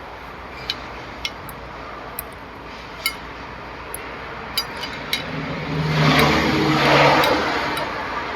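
A spoon clinks against a plate several times. Then a passing vehicle swells up loudly and fades away near the end.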